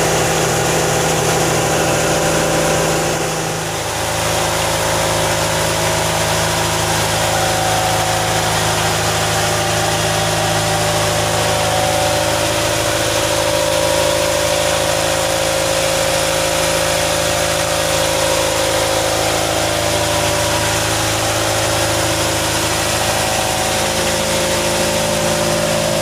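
Mitsubishi 4D four-cylinder diesel engine of a fishing boat running steadily, under the even hiss of heavy rain.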